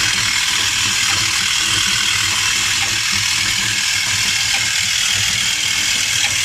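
Effervescent tablet tube packaging machine running steadily: a constant mechanical hiss and clatter with a repeating low pulse.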